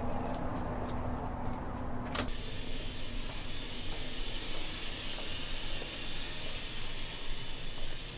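Outdoor parking-lot ambience with a steady low hum, which cuts abruptly about two seconds in to the steady, even hiss of a laundromat's room tone.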